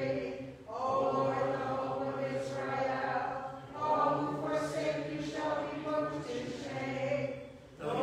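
Byzantine liturgical chant sung by several voices, held notes in phrases with short breaks between them, about half a second in, near the middle and just before the end.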